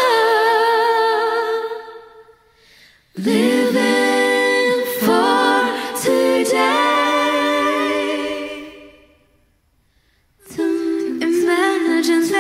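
Female vocal group singing a cappella in close harmony, with no instruments. Sung phrases are broken by two short pauses, one about two seconds in and a longer, near-silent one about nine seconds in.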